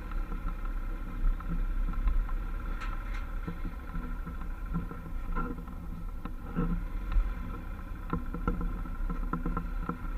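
Motorcycle running slowly across a slatted suspension-bridge deck: a steady low engine rumble with scattered knocks and rattles.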